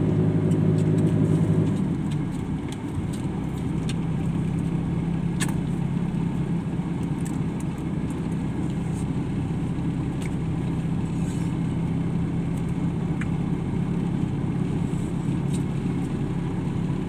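Car engine and tyre noise heard from inside the cabin while driving. The engine note eases off about two seconds in, then runs steady.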